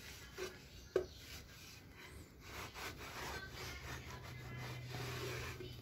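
Cloth rubbing over a polished aluminium scooter deck in quick, short strokes that start about halfway through. A single sharp knock about a second in.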